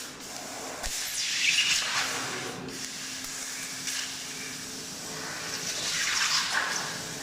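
Laser cutting machine running: a hissing noise that swells and fades twice.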